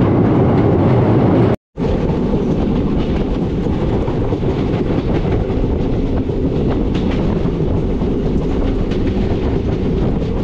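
Express train running over a bridge, heard from an open coach door: a steady, loud rumble of wheels on rails with faint clacking. It cuts out abruptly for a moment about one and a half seconds in, then resumes.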